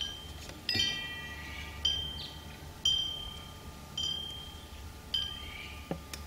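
Chimes ringing: a bright ringing note struck about once a second, each one fading away, over a steady low hum. A short falling squeak comes near the end.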